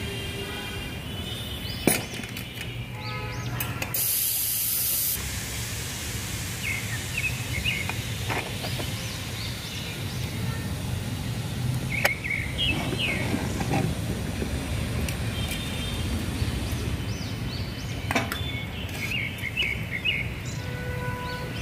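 Outdoor ambience with small birds chirping now and then. There is a short high hiss about four seconds in and a few sharp clicks.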